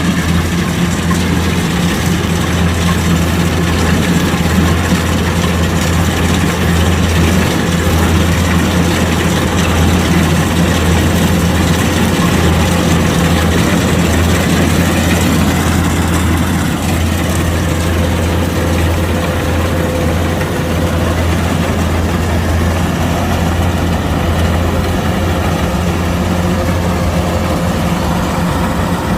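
Kubota DC-105X combine harvester's diesel engine running steadily: a constant low drone with a broad mechanical hiss over it.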